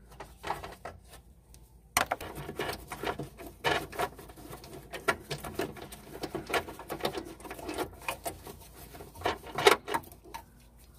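Rapid, irregular clicking and rattling of plastic retaining clips being worked out of a car's trunk lid by hand, to free the reverse-light panel. It starts about two seconds in.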